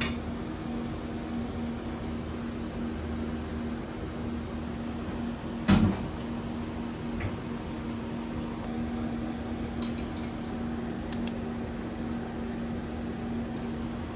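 Steady low electrical hum in a small room, with one sharp knock about halfway through and a few faint clicks of tableware later on.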